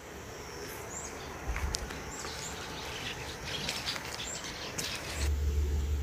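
Small birds chirping in short high calls, several over a few seconds, over steady outdoor background noise. A low rumble comes in near the end.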